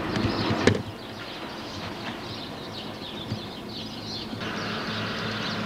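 The tail of a passing subway train's rumble, cut off abruptly with a sharp click about a second in. Then quieter outdoor ambience with small birds chirping faintly.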